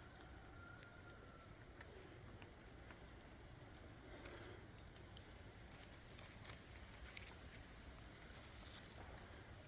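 Common marmosets giving short, high-pitched chirps: a brief held whistle about a second in, then two shorter chirps near two and five seconds, over faint scattered ticking and rustling.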